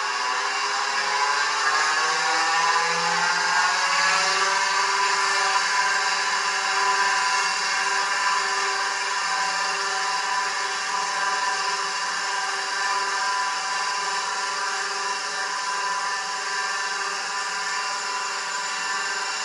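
Quantum 2040 8-inch hard drive's AC spindle motor spinning the platters up: a whine that rises in pitch over the first four or five seconds, then settles into a steady whir at full speed. With no controller board, only the spindle turns and the heads stay still.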